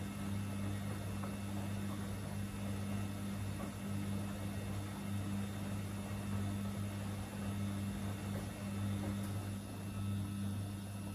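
Samsung and Gorenje front-loading washing machines running their wash cycles side by side, drums tumbling bulky loads through water and suds. There is a steady low hum under a sloshing wash noise.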